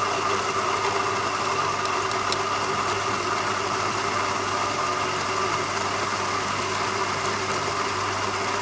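Electric coffee grinder running steadily, grinding a timed double-shot dose of about 10 grams into the portafilter, then cutting off suddenly as it stops automatically.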